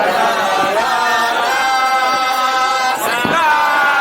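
Background music with chanted, choir-like vocals holding long notes.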